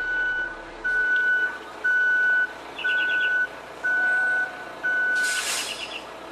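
A steady high electronic beep repeating about once a second, like a vehicle's reversing alarm, six beeps in all. It stops about five seconds in with a short burst of hiss.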